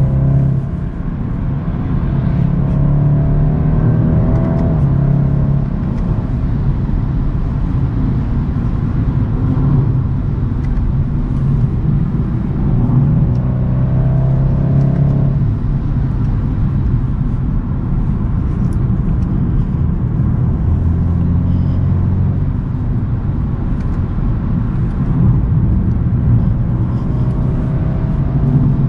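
2022 BMW 230i's turbocharged four-cylinder engine and exhaust running on the move, a steady drone with road noise. Twice the pitch climbs as the car accelerates, then drops away suddenly.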